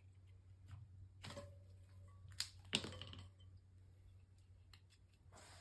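A few sharp clacks and knocks of tire-changing tools handled against a dirt bike wheel rim, the loudest two close together about halfway through, over a steady low hum.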